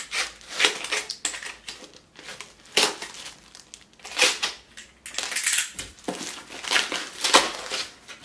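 A box cutter slicing through a paper-wrapped cardboard book mailer, with irregular crinkling and scraping of the paper and cardboard as the parcel is cut and pulled open.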